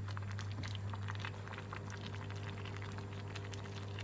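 A pot of bamboo-shoot soup boiling: an irregular patter of small bubbles popping, over a steady low hum.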